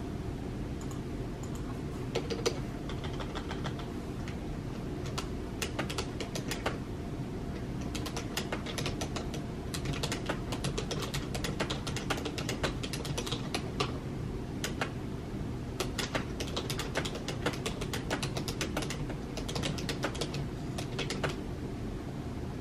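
Typing on a computer keyboard: a few scattered key clicks, then fast runs of clicks through most of the middle, over a steady low background hum.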